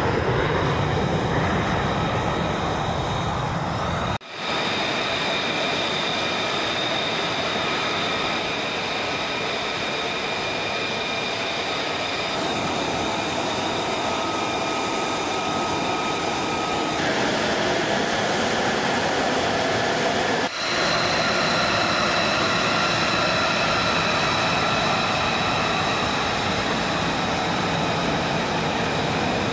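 F-35B Lightning II jet engines (Pratt & Whitney F135 turbofans) running on the flight line: a loud steady roar with a high, steady turbine whine. The sound breaks off and comes back abruptly twice, about four seconds in and again about two-thirds of the way through.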